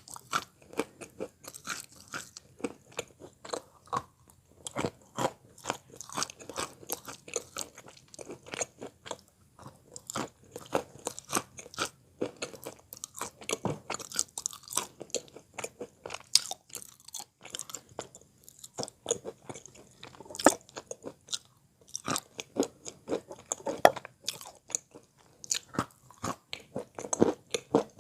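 Wet Belogorye chalk being bitten and chewed close to the microphone: a continuous run of dull, muffled crunches.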